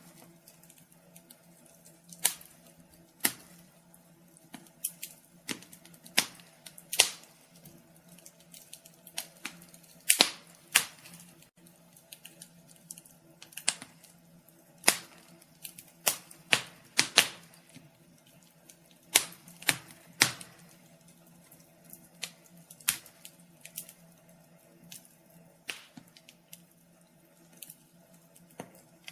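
Wood fire crackling: irregular sharp pops and snaps, some loud and some faint, over a soft steady background.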